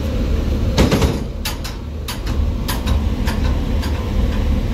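Low steady rumble of the ferry's engines, with a knock about a second in followed by a run of sharp metallic clinks, roughly one every half second, from the metal gangway gate and railing being worked.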